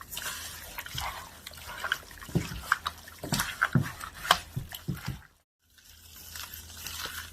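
Wet, squelching hand sounds of seasoning being rubbed into raw chicken pieces, irregular clicks and squishes, breaking off briefly about five seconds in before resuming.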